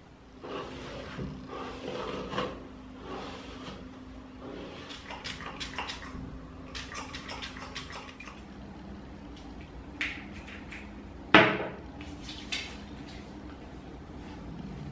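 A towel rubbing against the face, then a few short spritzes of a rose water facial spray. One sharp knock, the loudest sound, comes about two-thirds of the way through.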